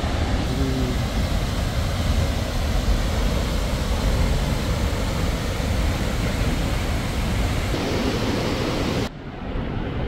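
Steady roar of a waterfall and its rushing creek, loud with a deep low rumble. About nine seconds in it cuts off abruptly to a quieter, duller hiss.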